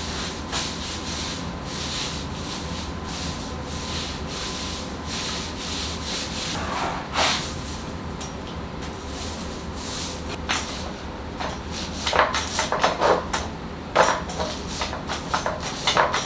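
A paint roller on an extension pole being rolled over a wall, a rubbing, rasping sound made of repeated strokes that come quicker and more sharply in the last few seconds. A faint steady hum runs underneath.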